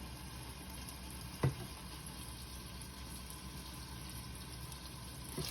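Ribeye steak sizzling steadily in hot oil in a frying pan, with a single light tap about one and a half seconds in.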